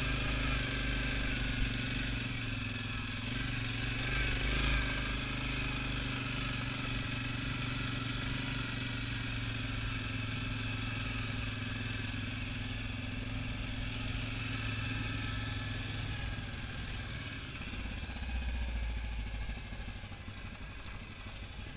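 Single-cylinder four-stroke ATV engine running at a steady speed as the quad rides a gravel trail, easing off and dropping in pitch near the end.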